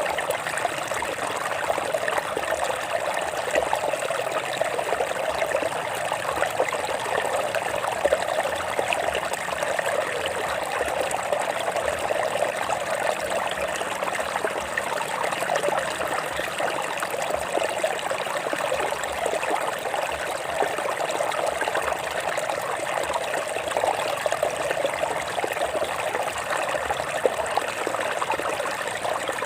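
Water flowing over rocks in a stream, a steady trickling and splashing that stays even throughout.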